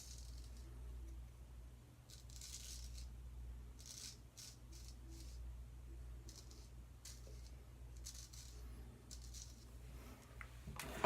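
Gold Dollar 208 straight razor scraping lathered stubble on a second pass: a series of short, faint strokes, each a second or less, with pauses between them.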